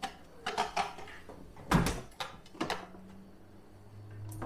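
Rummaging in a refrigerator: a series of knocks and clunks as a plastic container is taken out and the refrigerator door is shut, the loudest clunk about two seconds in.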